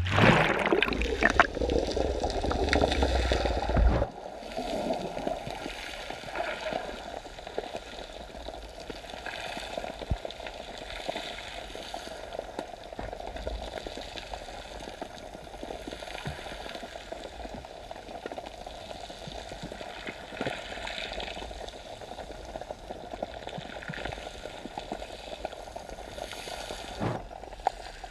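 Sea water heard through a camera taken under the surface: loud splashing and rumble for about the first four seconds, cutting off abruptly, then a steady muffled hiss with faint bubbling and an occasional click.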